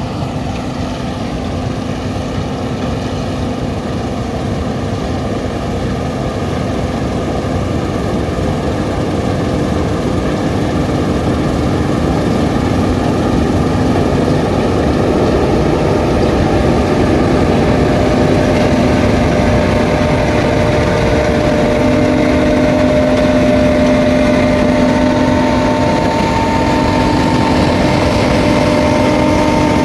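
John Deere S790 combine harvester running steadily while harvesting, its engine and threshing drives making a continuous drone with steady whining tones. It grows gradually louder, with higher whines joining in during the second half.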